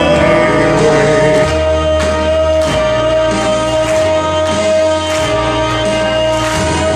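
Backing-track music with a bass line changing note about every second and percussion hits, one long note held steady throughout.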